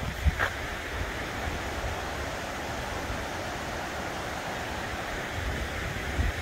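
Steady rush of a mountain stream flowing through the woods. Wind buffets the microphone at the start and again near the end.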